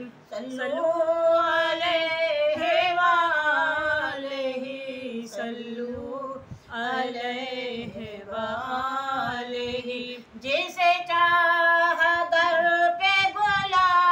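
A woman singing devotional Islamic verses unaccompanied, in long, drawn-out wavering phrases, pausing briefly for breath about six and ten and a half seconds in.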